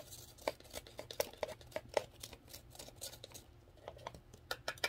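Sharp tool scraping and tapping inside a used plastic K-cup, knocking the coffee grounds out into a plastic cup: a run of quick, irregular plastic clicks, thinning out in the middle and bunching again near the end.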